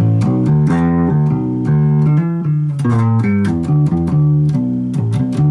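1967 Gibson EB-3 electric bass played through an amplifier with both pickups on, maybe in phase: a quick run of plucked notes changing in pitch.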